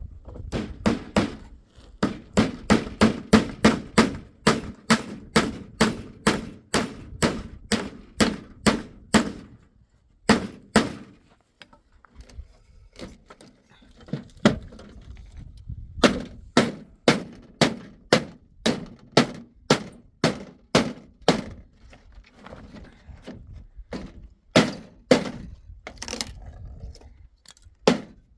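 Repeated hammer blows on wood, about two to three strikes a second, in runs broken by a couple of short pauses.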